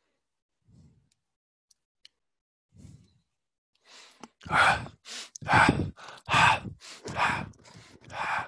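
Near silence for about four seconds, then a person's voice close to the microphone: a quick run of short, breathy vocal sounds, one every half second or so.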